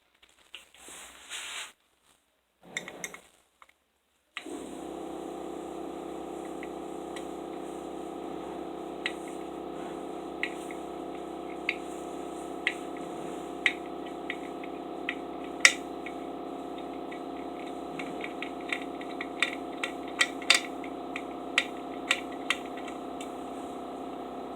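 Hard clicks and clinks of a screwdriver and screws working on a Simplex fire alarm horn's cover as it is unscrewed, one every second or so and coming faster near the end, over a steady hum.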